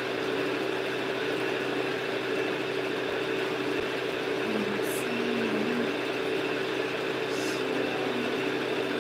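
Steady machine hum with one constant mid-pitched tone over a low hiss, without change.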